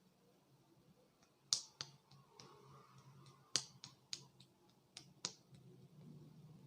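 A series of sharp snapping pops from the massage, about seven in four seconds at uneven spacing, the first and a middle one much louder than the rest. The pops are of the kind given by cracked joints or snapped fingers.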